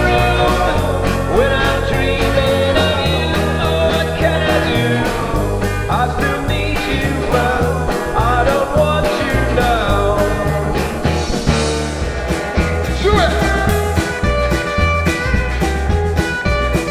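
A rock band playing live: several voices singing together over electric guitar, bass guitar and drums.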